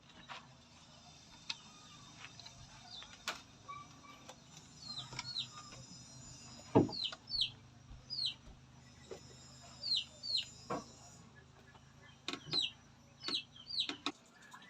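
Faint bird chirping: short falling chirps, mostly in pairs, repeated every second or so, with a few scattered knocks.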